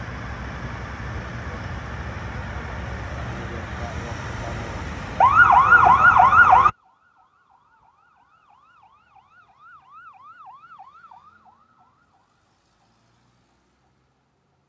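Street traffic noise, then about five seconds in a police siren starts a fast yelp, loud for about a second and a half before the sound cuts off abruptly. The yelp carries on faintly for a few more seconds, then there is silence.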